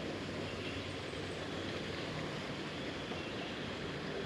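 Steady, even outdoor background rumble with a faint low hum and no distinct events.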